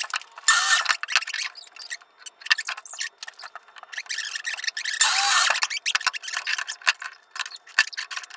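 Scratchy rubbing, light clicks and taps from a wooden board being positioned and marked on a miter saw table, with two longer scraping strokes about half a second and five seconds in. The saw's motor is not running.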